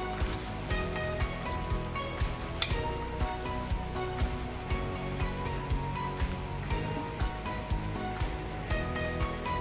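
Pot of short rib broth bubbling at a boil over background music with a steady beat, and one sharp click about two and a half seconds in.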